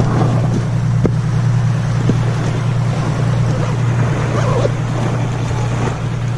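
Steady low motor drone, even in pitch, with a few faint clicks over it.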